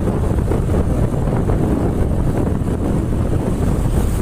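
Wind buffeting the microphone on a moving motorbike, a steady loud rush with the ride's low rumble underneath.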